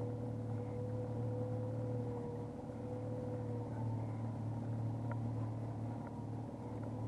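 Boat engine running steadily at trolling speed, a low even hum. A thin steady higher tone over it stops about halfway through.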